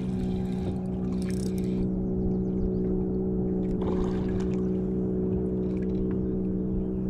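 A boat motor's steady, even hum, with two short bursts of noise, about a second and about four seconds in.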